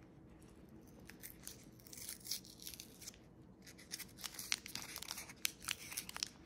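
Paper wrapper around a cheesecake cone being crinkled and torn off. A quick, irregular run of crackling rustles starts about a second in and grows busier toward the end.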